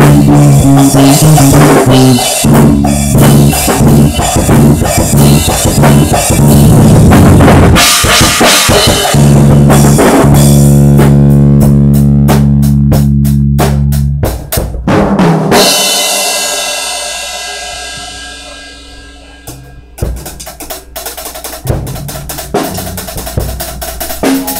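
Loud live jam on a Pearl drum kit with a guitar playing sustained chords. About ten seconds in, a held chord sits under a fast run of drum hits that ends on a last hit near fourteen seconds and rings out, fading over several seconds; from about twenty seconds, quieter scattered drum hits.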